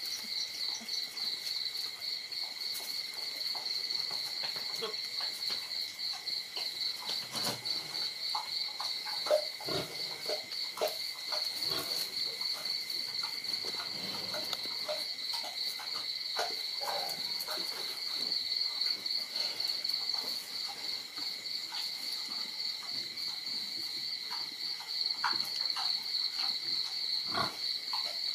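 Crickets chirping steadily in a fast, even high-pitched trill, with scattered brief clicks and faint scuffling sounds from a puppy and kitten play-fighting on concrete.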